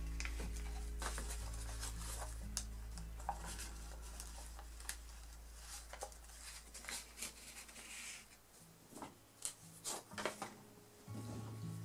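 A sheet of A4 printer paper being folded and creased by hand, heard as short crinkles and rustles. Soft background music runs under it, fades out about two-thirds of the way through and comes back near the end.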